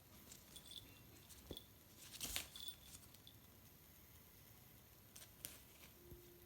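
Faint scattered scratches, taps and rustles of a cat playing with a string, the loudest a short scratchy rustle about two seconds in, against near silence.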